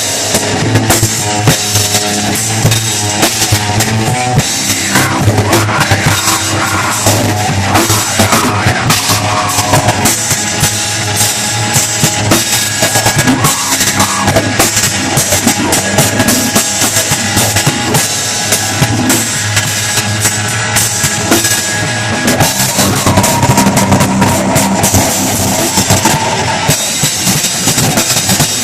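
Rock music with a drum kit playing fast, dense beats under sustained pitched instruments.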